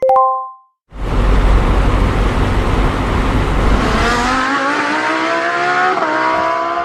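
A short chime, then after a brief pause a loud rushing vehicle sound effect. Its motor pitch climbs steadily from about three seconds in, with a brief dip near the end, as the vehicle accelerates.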